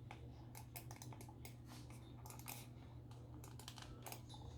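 Faint, irregular small clicks and crackles of fingers handling a plastic computer mouse and a thin adhesive glide-foot sticker as it is placed on the mouse's underside.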